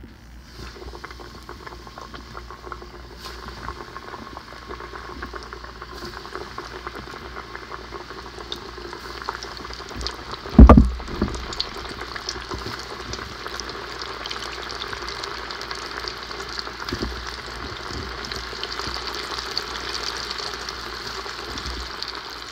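Breaded catfish nuggets deep-frying in hot oil in a stainless steel stockpot: a dense sizzle and bubbling that starts as the pieces go in and slowly builds. A single loud thump comes about halfway through.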